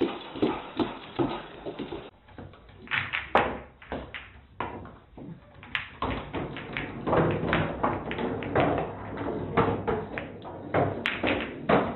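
A dog's claws clicking rapidly on a wooden floor as it scampers. Then a puppy scrambles over a pool table, with billiard balls knocking together in sharp, scattered clacks.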